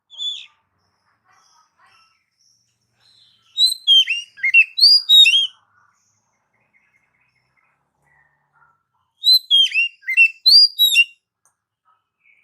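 Oriental magpie-robin (kacer) singing. A short whistled note comes first, then two quick phrases of clear, sweeping whistles separated by a few seconds of quiet.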